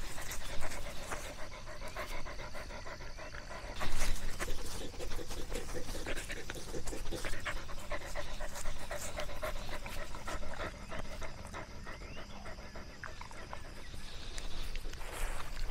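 A dog panting steadily in a rhythmic pattern, with a brief louder knock about four seconds in.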